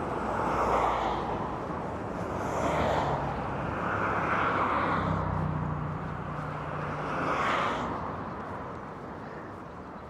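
Road traffic going by: about four vehicles pass one after another, each swelling and fading, with a low engine hum under the middle of the stretch.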